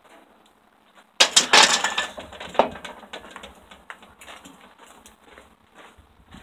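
Loaded barbell clanking down into the hooks of a steel bench-press rack about a second in: a few sharp metal knocks, then lighter clatter dying away.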